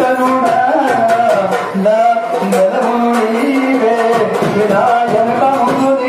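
Indian devotional music: a voice singing a gliding, ornamented melody over steady percussion.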